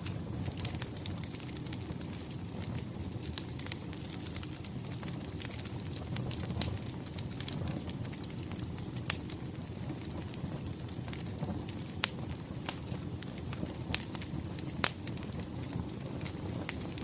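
Wood fire crackling, irregular sharp pops over a steady low rumble of burning logs, with two louder snaps, one about halfway through and one near the end.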